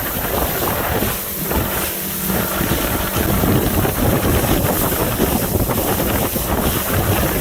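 Boat's outboard motor running under way, nearly buried by strong wind buffeting the microphone in a dense, steady rush.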